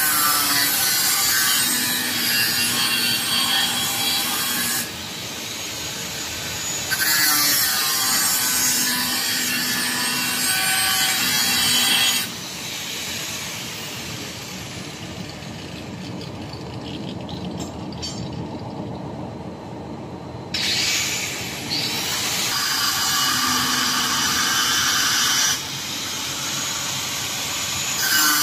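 Electric angle grinder grinding and cutting metal, throwing sparks. It comes in several loud bouts with quieter stretches between them, the longest lull in the middle.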